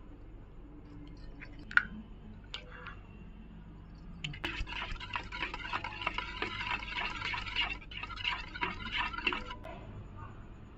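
Eggs being beaten with a spoon in a steel bowl: a few single clicks, then from about four seconds in a fast run of clinking and sloshing batter that lasts about five seconds and stops.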